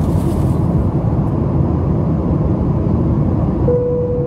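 Steady cabin noise of a Boeing 737-700 in flight: a low rumble of engines and rushing air heard from inside the cabin. A brief steady tone sounds near the end.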